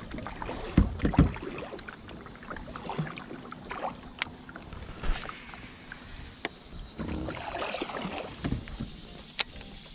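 Kayak paddling: a paddle dipping and splashing, with two loud thumps about a second in, then scattered quieter knocks and splashes and a couple of sharp clicks as the kayak glides.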